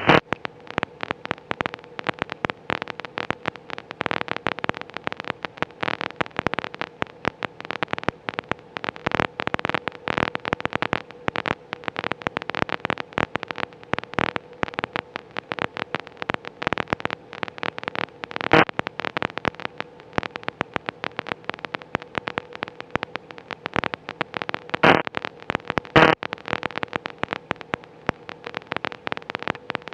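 Aircraft radio audio fed into the camera, with no one transmitting: constant irregular crackling over a faint steady tone, with a few louder cracks in the second half. The crackling persists even after a new antenna was fitted.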